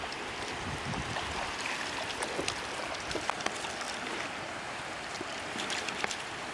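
Shallow water sloshing and trickling as a person wades and works a net in it, with many small sharp splashes and clicks scattered through.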